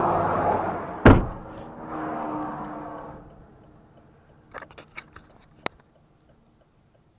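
A car door shuts with one loud thump about a second in, then a few light clicks and taps before it goes quiet.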